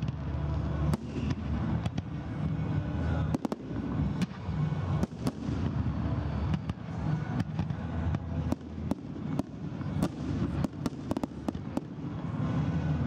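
Aerial fireworks display: shells bursting in a rapid, irregular series of sharp bangs, several a second, over a steady low background noise.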